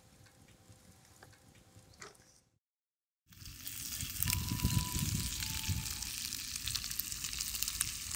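Strips of bacon frying in hot fat in a cast iron skillet, a loud, crackling sizzle as the slices are laid in with chopsticks. It starts abruptly about three seconds in, after a faint, quiet stretch and a brief gap.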